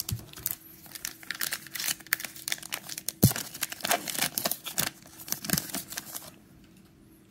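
Cellophane wrapper of a trading-card cello pack being torn open and crinkled: a rapid, uneven crackle with one sharp snap about three seconds in, stopping about six seconds in.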